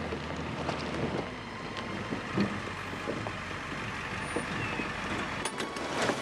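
A truck driving slowly, its engine running with a low rumble under scattered rattles and knocks from the body and load. The rumble drops away about five and a half seconds in, followed by a short clatter.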